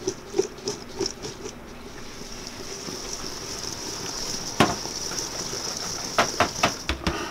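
Maraschino cherries shaken in confectioners' sugar in a metal bowl, coating them: light taps at first, then a steady rolling hiss of the sugar-covered cherries, with a few sharp knocks near the end.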